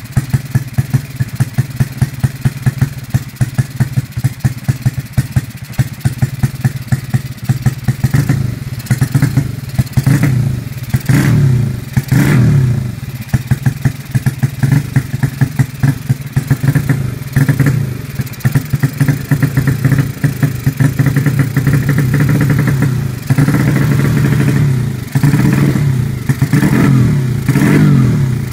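Modified Honda Supra underbone motorcycle's single-cylinder four-stroke engine, its head fitted with Honda Sonic 150 valves, running on the stand. It idles with an uneven, pulsing beat, then from about eight seconds in is revved in repeated short blips that rise and fall.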